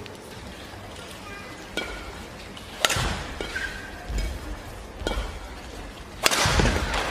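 Badminton rally: the shuttlecock is struck by rackets in sharp cracks about a second or two apart, with shoes squeaking on the court and feet thudding. The loudest hit comes near the end and is followed by crowd noise.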